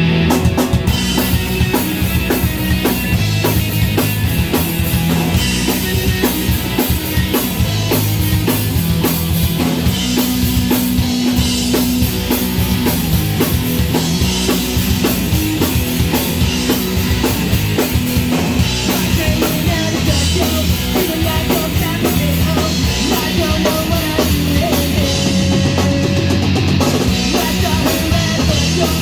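Rock band music: a drum kit keeping a steady beat with bass drum, over electric guitar and bass.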